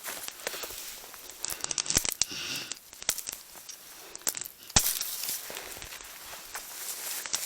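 Footsteps crunching irregularly through thawing snow and forest litter, with two sharp cracks, one about two seconds in and one near five seconds.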